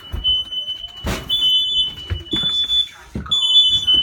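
Smoke detectors going off: a shrill alarm tone sounding in pulses about once a second, with two high pitches overlapping, and a few knocks underneath.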